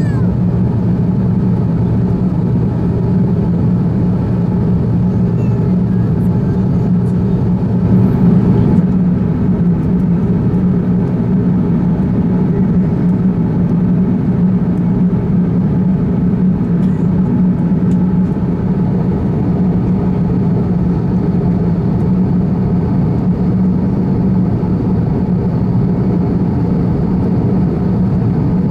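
Steady in-flight cabin drone of an Airbus A350-1000: Rolls-Royce Trent XWB engines and airflow over the fuselage, a constant low hum with a slight rise in level about 8 seconds in.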